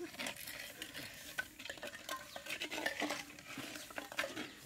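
A ladle stirring chicken curry in a clay pot, with irregular scrapes and knocks against the pot and a faint sizzle.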